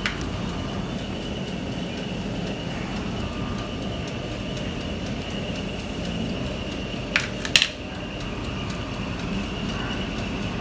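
Steady mechanical hum with a thin high whine, like a running fan, with two short clicks about seven seconds in.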